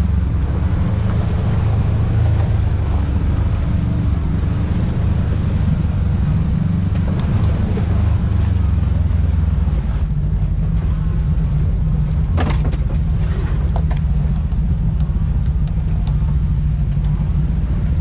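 Side-by-side UTV engine running with a steady low drone that eases slightly about ten seconds in. A brief sharp clatter comes about twelve and a half seconds in.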